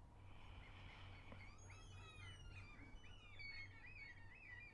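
Near silence: a low steady hum, with many faint, high, chirping bird calls starting about one and a half seconds in.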